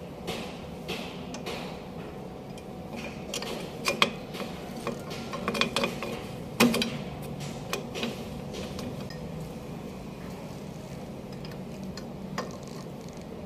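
Scattered metallic clinks and scrapes as a new brake shoe and its hardware are fitted by hand onto a Mazda 323 Familia's rear drum-brake backing plate. The sharpest clinks come about four seconds in and again near the middle.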